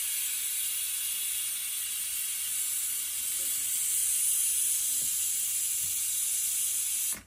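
A steady hiss, strongest in the high range, that cuts off suddenly near the end.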